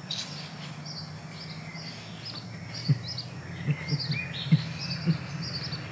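Small birds chirping repeatedly in the background over a steady low hum. A few short, soft knocks come about halfway through and again later.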